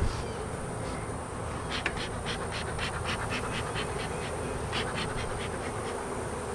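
Honey bees buzzing in a steady hum around an open, crowded hive. Two runs of quick light clicks, about four or five a second, come partway through.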